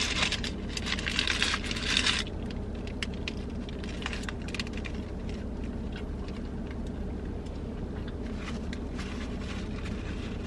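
Paper wrapper around a pita crinkling and rustling for about two seconds, then soft eating sounds, a bite and chewing with faint mouth clicks, over a low steady hum.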